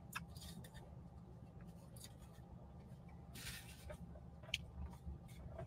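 Quiet room tone: a faint steady low hum with a few soft clicks and a brief faint rustle about three and a half seconds in.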